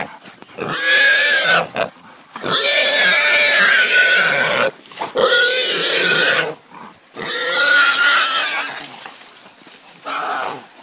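Wild boar squealing in long, wavering screams, about five in a row with short breaks, weaker near the end; the cries of a boar held by hunting dogs.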